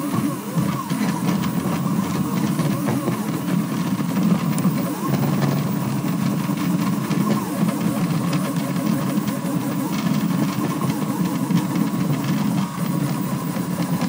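Delta 3D printer running a fast print: its stepper motors whine in rapid rising and falling glides as the print head darts about, over a steady high tone.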